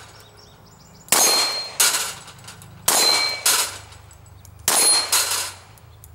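Metallic clangs in pairs, three pairs about two seconds apart. Each strike rings with a high bell-like tone that dies away within about half a second.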